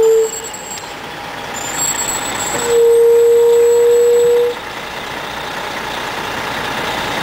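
Fire engine horn sounding two steady blasts: a short one at the start, and a longer one of about two seconds beginning nearly three seconds in, over the truck's engine running.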